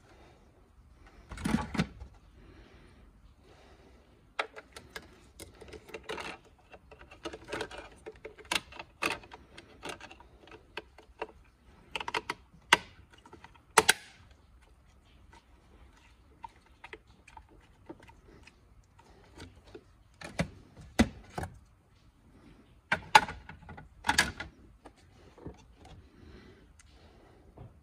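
Plastic parts of a car side mirror being handled and pressed together by hand: irregular clicks, knocks and light rattles. A few sharper clicks come in clusters, with quiet stretches between.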